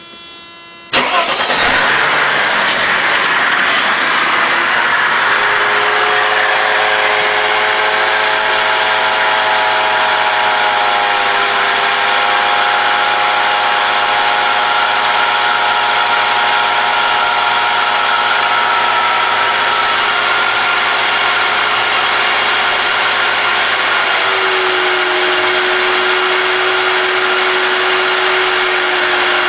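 Mercedes-Benz M104 straight-six in a 1995 E320 starting from cold about a second in, then running at idle with a steady whirring whine. The owner has traced the whir to the engine itself, not the belt-driven accessories, and it comes with a cold start; its cause is unknown. The whine steps down slightly in pitch twice.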